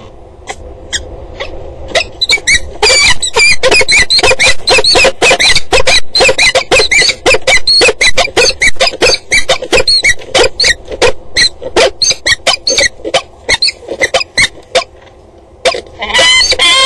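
Peregrine falcons calling at the nest, a rapid run of harsh, squealing calls lasting about thirteen seconds, as made during a prey handover between the pair. Music begins near the end.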